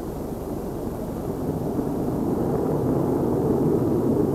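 Jet aircraft in flight, the B-52 mothership carrying the X-15: a steady roar of engines and rushing air that slowly grows louder.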